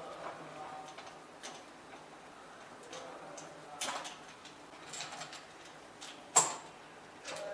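A CO2 hose T-splitter connector handled on a desk: scattered light clicks and, about six seconds in, one sharp loud knock as the fitting is set down or struck.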